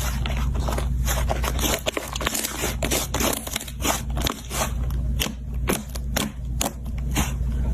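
Slime being squished and worked by hand close to the microphone: a dense, irregular stream of sticky clicks and pops over a low rumble.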